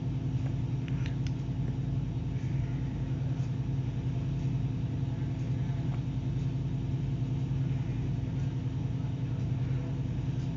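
A steady low mechanical hum with a couple of faint clicks about a second in.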